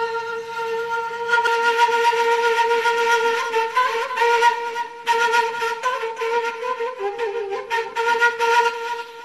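Kurdish shimshal, a long wooden end-blown flute, playing a slow solo melody: breathy held notes that move in small steps with short ornamental turns between them.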